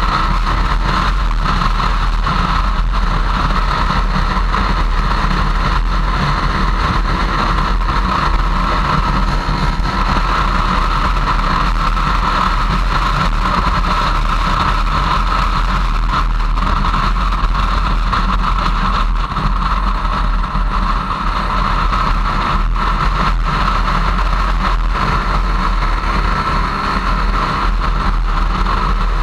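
Motorcycle riding at road speed, heard from an on-board camera: a steady engine note that rises and falls slightly, mixed with continuous wind and road noise.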